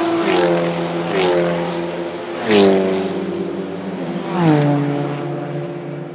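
Endurance race cars passing one after another at speed, about four in turn. As each car goes by, its engine note drops in pitch. The loudest pass comes about two and a half seconds in.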